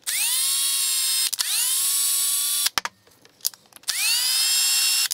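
Cordless drill motor running in three main runs of about a second and a half each, each one starting with a quick rising whine as it spins up and then holding steady, with short blips of the trigger between them, as the drill works into a hole in a white acetal part.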